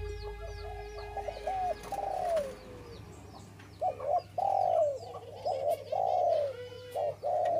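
Spotted dove (tekukur) cooing: a run of short coos falling in pitch, a pause about midway, then a steady series of repeated coos.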